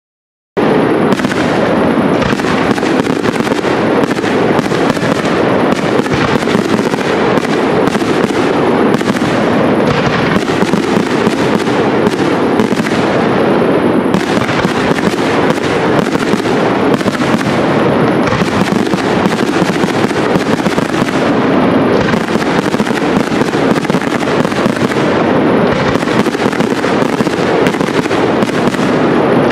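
Aerial fireworks display: a dense, unbroken barrage of shell bursts and crackling that starts abruptly about half a second in.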